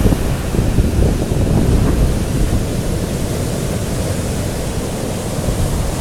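Heavy storm surf breaking and rolling on the beach, with strong wind buffeting the microphone as a low rumble. The noise is steady, dipping slightly in the middle and building again near the end.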